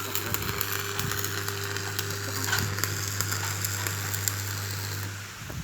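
Electric arc welding: the arc crackles and sizzles with dense small spatter clicks over a steady low hum from the welding machine, and both stop about five seconds in as the arc is broken.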